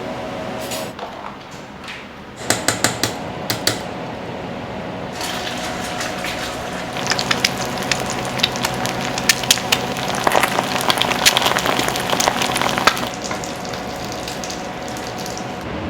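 Food frying in hot oil, a dense crackling sizzle that grows busiest in the middle, with a few sharp clicks of kitchen utensils early and a steady hum of kitchen equipment underneath.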